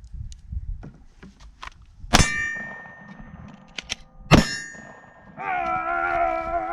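Two Glock pistol shots about two seconds apart, each with a metallic ringing clang like a struck steel target. A goat then bleats, one long wavering call starting about five seconds in.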